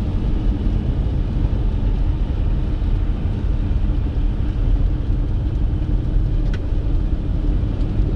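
Steady low rumble of vehicles driving on a snow-covered highway: engine and tyre noise, with a faint short tick about six and a half seconds in.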